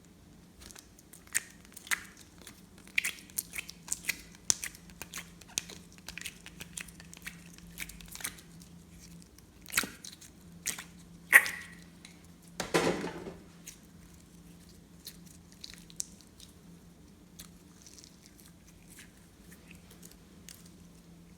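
Slime being worked by hand, with sticky clicks and pops: many in the first half, a loud pop about eleven seconds in, a short crackling squish just after, then sparser ones. A faint steady hum runs underneath.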